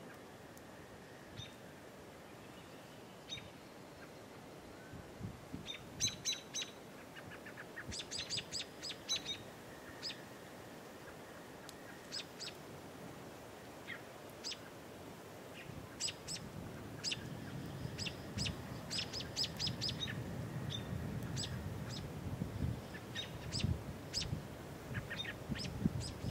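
Small birds chirping in quick clusters of short, sharp calls. A low wind rumble builds on the microphone in the second half.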